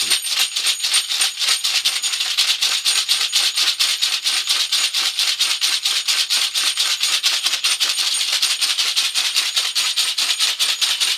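A ritual rattle shaken in a fast, steady rhythm of about six shakes a second.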